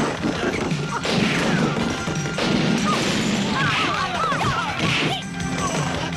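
Fight-scene soundtrack of a kung fu film: a quick run of dubbed punch and kick hits and crashing furniture over background music.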